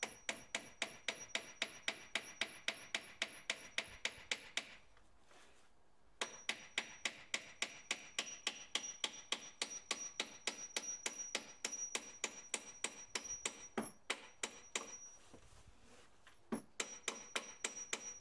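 Hammer driving nails into pallet wood with quick, even taps, about four or five a second, in three runs broken by short pauses, firming up a rickety joint of a workbench.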